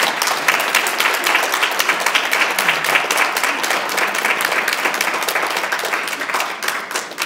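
Audience applauding: steady clapping from many hands, beginning to die down near the end.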